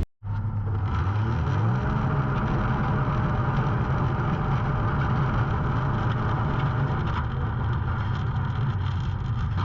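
Can-Am Maverick X3's turbocharged three-cylinder engine running at low, fairly steady revs through a freshly fitted quiet aftermarket exhaust, with a slight rise in pitch about a second and a half in.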